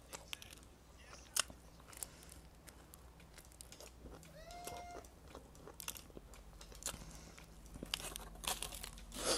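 Close-up crunching and chewing of crispy fried pastry, with sharp crackles as it is torn apart and bitten. A louder rustle of the paper wrapper comes near the end.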